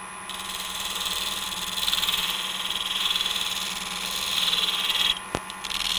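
A scraping cut as a small scraping tool trims the end of a wooden pen blank flush with its glued-in brass tube on a running lathe, over the lathe's steady hum. The scraping starts just after the beginning, breaks off briefly about five seconds in with a click, and starts again.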